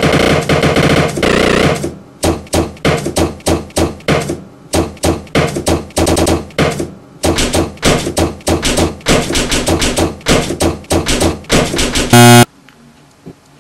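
A fist banging rapidly and repeatedly on a kitchen countertop, about three to four blows a second, packed into a dense clatter for the first two seconds. A short, very loud blaring tone cuts in about twelve seconds in.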